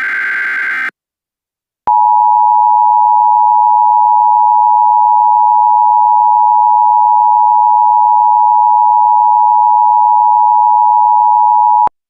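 The end of an Emergency Alert System digital header burst, a harsh data screech, stops about a second in. After a brief silence the EAS two-tone attention signal sounds loud and steady for about ten seconds, then cuts off abruptly.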